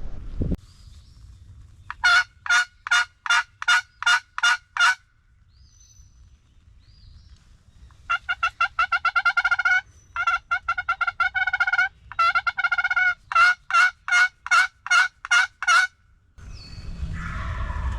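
Turkey yelps: a run of about nine evenly spaced yelps, then after a pause several faster, choppier strings of notes and another run of evenly spaced yelps.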